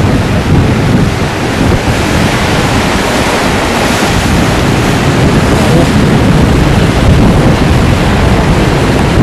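Mississippi River whitewater churning below St. Anthony Falls, in high spring flow from snowmelt: a loud, steady rush of water.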